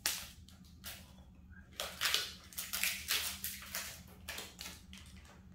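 Plastic protective film being peeled off a new phone, crinkling and rustling in a run of short, irregular crackles.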